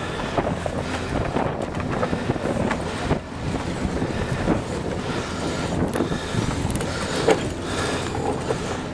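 Wooden schooner under way: a steady low rumble with irregular rattling and clattering over it, and wind buffeting the microphone.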